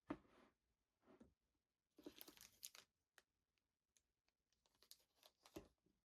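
Packaging being handled and opened by hand: short bursts of crinkling and tearing, with a few sharp clicks in between.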